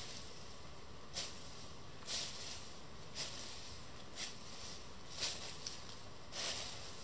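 Footsteps crunching through dry fallen leaves on stony ground, one slow step about every second.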